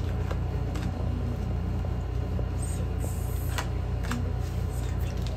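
Tarot cards being picked from a spread on a cloth-covered table: a few soft, scattered clicks and taps of card on card, over a steady low hum.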